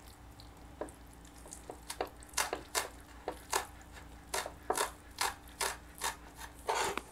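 Japanese kitchen knife thinly slicing green onion tops on a wooden cutting board: a short tap of the blade on the board with each stroke, sparse at first, then about three a second.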